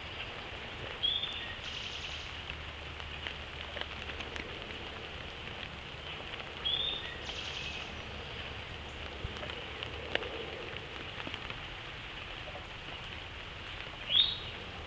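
Steady rain pattering in woodland, with three short bird chirps: one about a second in, one near the middle and a louder one near the end.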